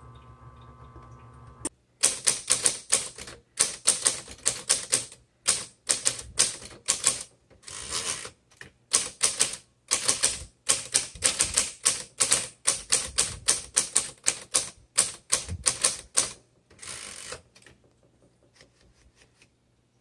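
1970s Smith Corona Coronet Automatic 12 electric typewriter typing fast runs of sharp key strikes with short pauses, over the steady hum of its running motor. The typing starts about two seconds in and stops a few seconds before the end, leaving only the hum.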